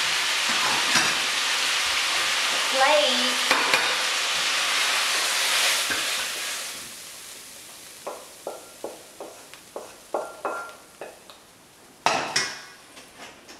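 Stir-fry sizzling steadily in a hot wok, the sizzle fading out about six or seven seconds in as the wok is taken off the heat. Then a quick run of taps and scrapes of a wooden spatula against the wok as the food is pushed onto a plate, with a louder clatter near the end.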